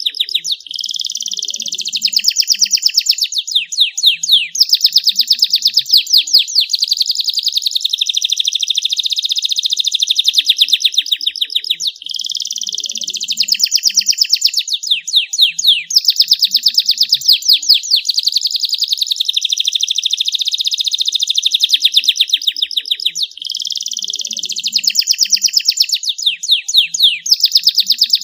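Domestic canary singing continuously: a long, clear song of rapid trills and quick repeated notes, broken by a short pause about every twelve seconds, where the same run of phrases starts over.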